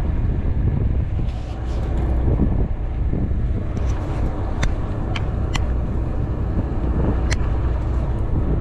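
Steady low rumble of the sportfishing boat's engine, mixed with wind on the microphone, with several sharp clicks in the middle.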